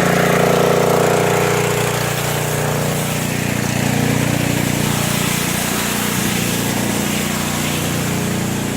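Pressure washer engine running steadily under a constant hiss.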